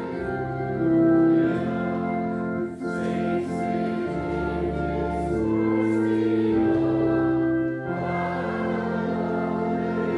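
Congregation singing a hymn to organ accompaniment, the notes held long and changing together chord by chord.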